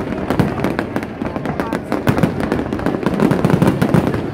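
Fireworks going off in rapid succession: a dense, unbroken run of booms and crackling bursts, several per second.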